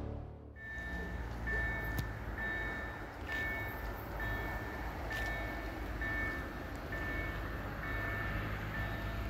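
Electronic level-crossing warning signal beeping steadily, a short two-pitched tone a little more than once a second, with a low steady rumble underneath. It sounds as a train approaches the crossing.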